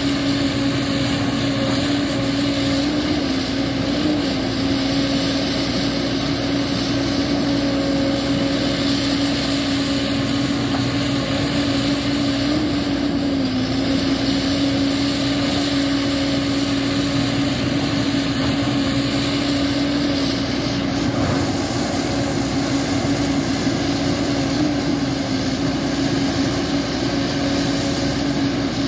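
Tracked JCB excavator's diesel engine running steadily while the machine works, with a strong even hum that dips slightly in pitch a few times.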